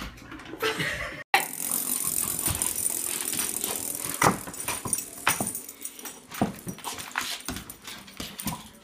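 A dog giving several short barks while a small hard toy clatters on a wooden floor.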